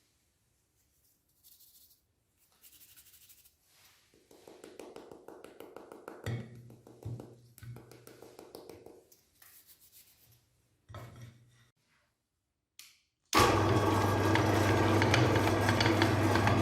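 Soft handling noises, small rustles and clinks, then about 13 seconds in an electric meat grinder switches on and runs loudly and steadily with a low motor hum.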